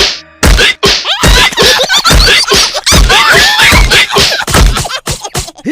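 Cartoon character voices chattering in rapid, high, wavering gibberish, broken by a run of short, hard thumps about once a second: cartoon hiccup and impact sound effects.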